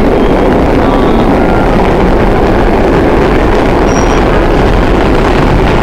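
Vintage R1–R9 subway cars of the Holiday train running through a tunnel, heard from inside the car: a loud, steady rumble of wheels on track.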